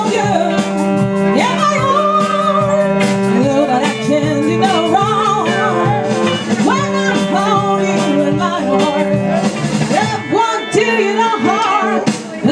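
Live rock band playing: a woman singing with vibrato over electric guitar, bass and saxophone.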